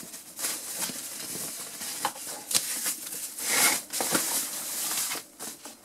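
Thin white protective wrapping crinkling and rustling by hand as an oscilloscope is pulled out of it, in irregular surges with the loudest rustle about three and a half seconds in.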